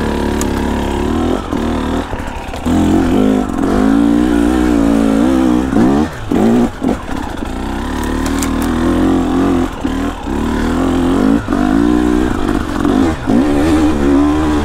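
Two-stroke dirt bike engine revving hard, its pitch rising and falling with the throttle and cutting back briefly several times, as the rider works the throttle on a steep rocky climb.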